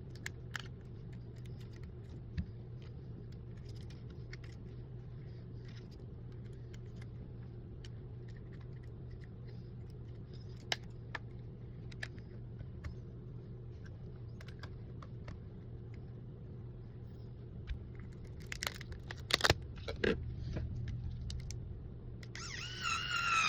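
Small clicks and taps of repair tools working on an iPhone 14 during a battery replacement, over a steady low hum, with a few louder clicks near the end. A cat meows just before the end.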